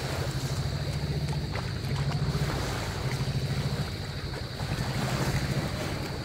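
An engine running steadily with a fast, even chug, over small waves washing on the sand.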